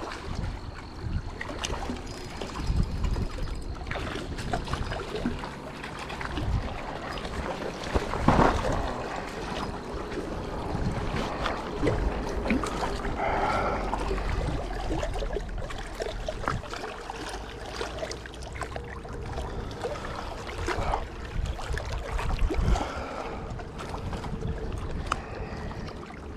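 Wind buffeting the microphone over water sounds from a small boat, with many short clicks and knocks of handling scattered through and a louder knock about eight seconds in.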